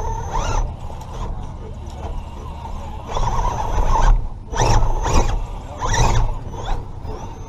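Electric motor and geartrain of a Redcat Gen7 Pro RC rock crawler whining in short bursts of throttle, the pitch rising and falling with each burst, over a low rumble.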